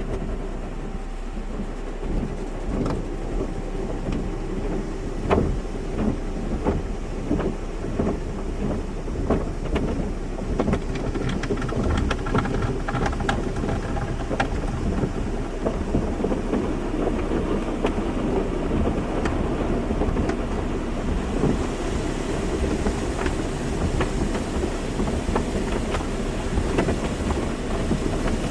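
Car wash: water spraying and spattering against a car, with a steady low rumble under many sharp irregular hits of water. About two-thirds of the way through the spray turns hissier.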